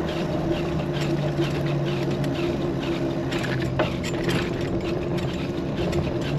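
An engine running steadily at an even pitch, with a faint high chirp repeating about twice a second.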